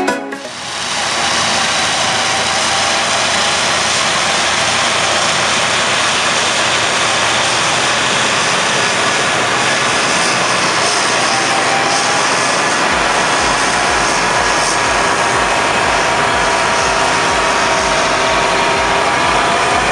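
John Deere 7530 tractor's engine working under load, together with its front flail mower and rear Agrator rotary top miller running: a steady, dense mechanical noise. A low rumble comes in about two-thirds of the way through, as the tractor passes close.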